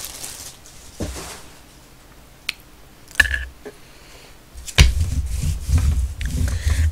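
Plastic cup and paper food packaging being handled and rustled, with a few small clicks. Nearly five seconds in there is a sharp knock, followed by a low rumble of bumping as the packaging is set down and moved about.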